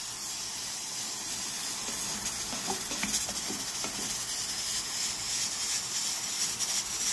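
Pressure cooker venting steam with a steady hiss, a bit noisy. A few faint bubbles from a pot of simmering sauce come through near the middle.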